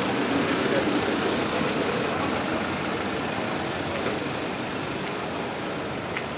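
Road traffic: a vehicle running past, its noise slowly easing off.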